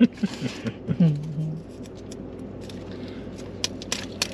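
Paper fast-food packaging crinkling and clicking as it is handled, in short scattered bursts. There is a brief wordless voice at the start.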